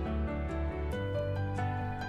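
Background music: a slow melody of held notes over sustained bass notes, changing pitch every half second or so.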